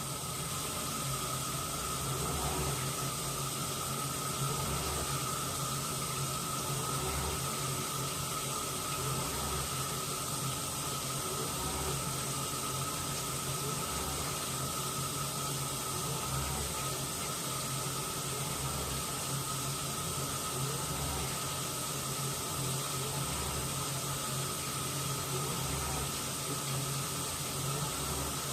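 Washing machine running mid-cycle, with water rushing and swishing in the drum over a steady motor hum. A low pulse repeats about every two seconds.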